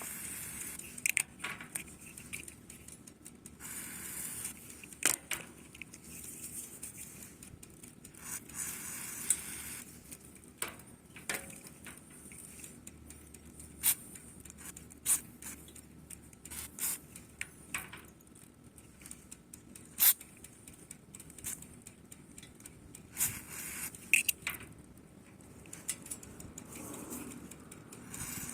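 Short hissing bursts of an aerosol lubricant and rust-preventive spray being sprayed, with many sharp clicks and taps scattered in between.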